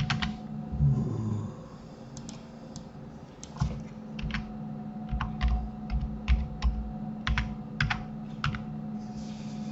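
Computer keyboard being typed on in irregular runs of key clicks, most of them in the second half, as a file name is entered, over a steady low hum.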